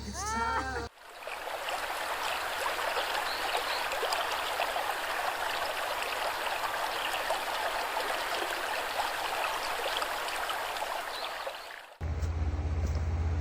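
River water running over rocks, a steady rushing babble that cuts in about a second in and cuts off near the end.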